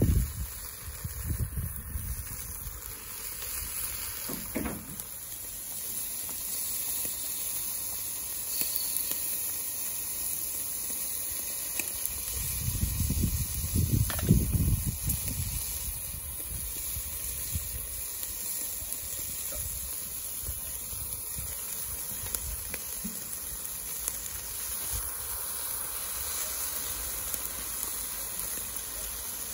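Chicken drumsticks and pork belly sizzling on a mesh grate over charcoal, a steady hiss. A few low rumbles come through, the strongest about halfway through.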